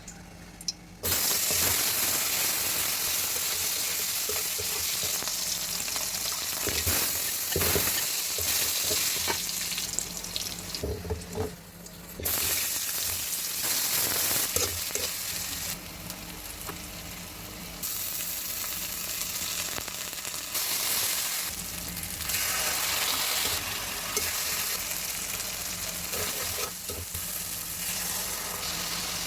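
Food sizzling in hot oil in a pan, starting abruptly about a second in, with the clicks and scrapes of stirring.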